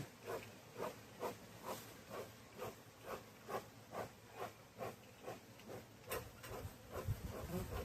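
Bee smoker bellows pumped steadily, puffing smoke over the top of the hive in short hissing puffs about two a second. Some low handling noise comes in near the end.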